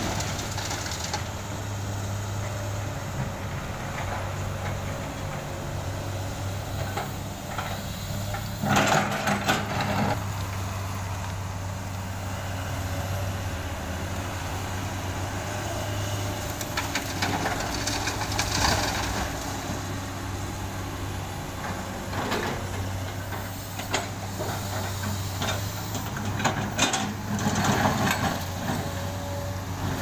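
Komatsu PC200 hydraulic excavator's diesel engine running steadily while it works, with repeated loud clattering and scraping of broken asphalt chunks and soil as the bucket digs into the pile and dumps into the truck bed: once about nine seconds in, again around seventeen to nineteen seconds, and several times near the end.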